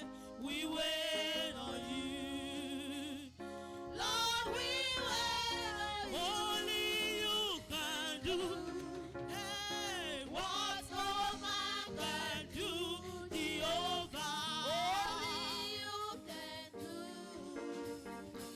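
Church choir singing a gospel song with instrumental accompaniment; the sung notes waver with vibrato over a steady low backing.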